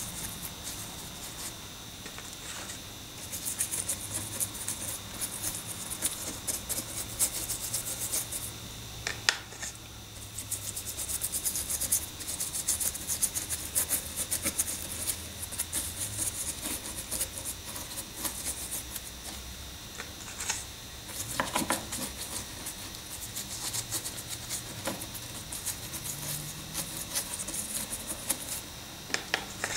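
A paintbrush scrubbing a watery grey paint wash onto moulded model rock, a dry scratchy rubbing of bristles on the rough surface. It goes in spells, with short pauses about ten seconds in and again about twenty-one seconds in.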